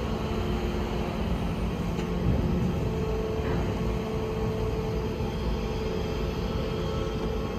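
Steady low rumble with a constant hum from the ferry Ferry Fukuoka's engines as it lies at the quay ready to depart.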